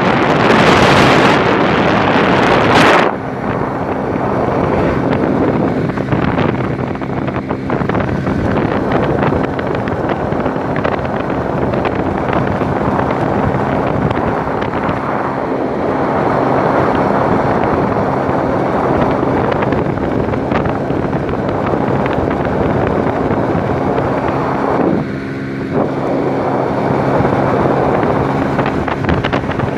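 Strong wind buffeting the microphone, very loud for the first three seconds, then a steady rush with a low, steady hum underneath.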